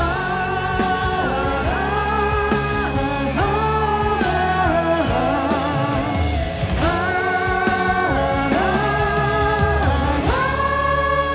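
Live rock-pop singing by male and female voices together, holding a string of long, wavering 'ah' notes about a second each over a band with guitar.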